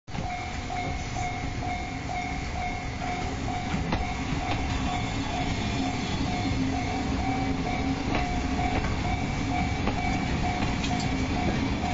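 Japanese level-crossing warning bell ringing in a quick, steady rhythm over the low rumble of a DE10 diesel-hydraulic locomotive and passenger coaches moving slowly through the crossing.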